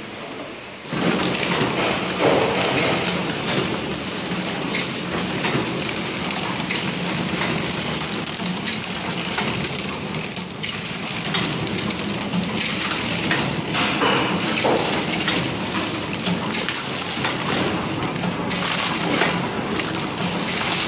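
Reciprocating flow-wrapping (pillow-pack) machine starting up about a second in, then running with a steady hum and a dense, fast clatter of clicks from its feed and sealing mechanism.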